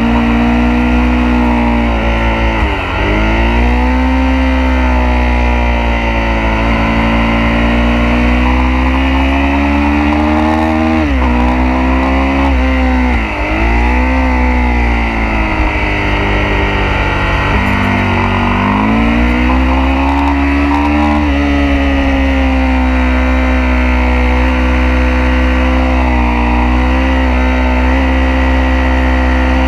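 Sportbike engine heard from on board at track speed. The engine note climbs slowly under throttle, then drops steeply and climbs back several times as the rider shifts gears and brakes for corners. A steady rush of wind runs under it.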